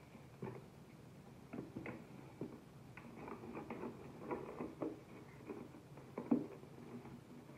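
Packaging being handled and opened during an unboxing: irregular short rustles, scrapes and light taps.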